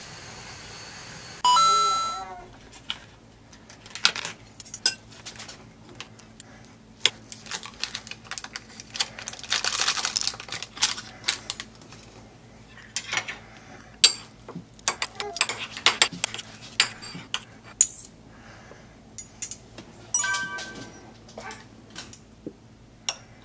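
A utensil clinking and scraping on a small ceramic plate as powdered medicine is mixed into wet dog food, in many short irregular clinks. There is a rustle about ten seconds in, and two brief ringing chimes, one near the start and one near the end.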